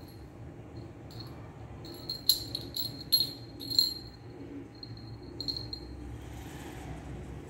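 Small jingle bell on a short chain jingling as a kitten bats it about. It rings in several brief bursts, the loudest three about two to four seconds in.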